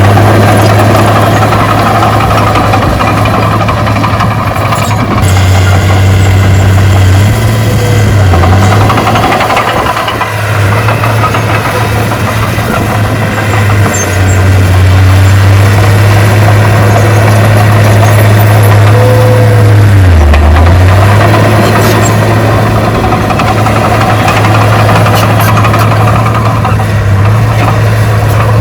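Heavy earthmoving machine's diesel engine running steadily. Its pitch dips briefly a couple of times as the load changes.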